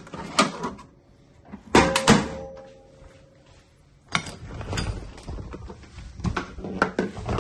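Screwdrivers and other tools clattering in a metal tool chest drawer, with two loud knocks about two seconds in. About four seconds in, a doorknob's latch clicks and a door opens, followed by more knocks and rustling.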